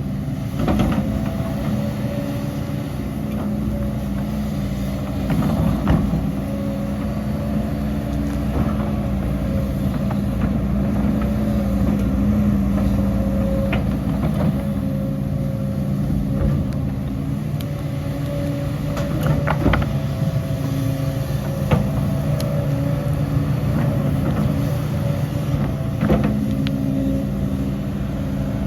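Heavy diesel engine of earthmoving machinery running steadily under varying load, with sharp knocks now and then.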